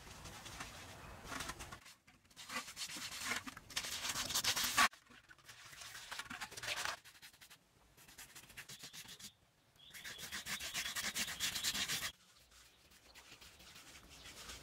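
A brush scrubbing paint onto a rough cement wall: dense, scratchy rubbing strokes in several separate stretches, each stopping abruptly.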